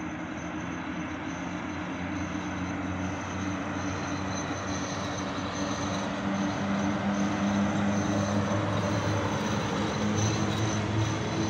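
PKP ET22 electric freight locomotive hauling a train of hopper wagons, drawing nearer and growing steadily louder. Its steady low motor and blower hum is joined by a faint high whine, over the noise of the wheels on the rails.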